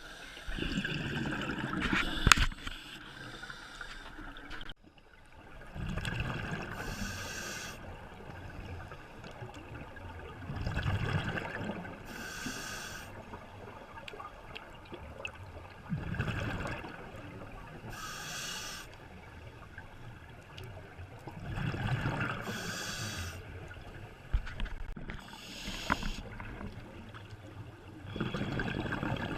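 A scuba diver breathing through a regulator underwater. There is a rhythmic cycle of hissing inhalations and bubbling exhalations, repeating roughly every five seconds, about six breaths in all.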